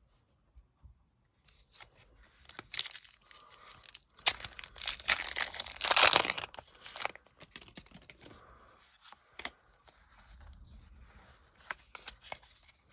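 Foil booster-pack wrapper being torn open and crinkled, loudest about four to six seconds in, followed by lighter rustling and clicks.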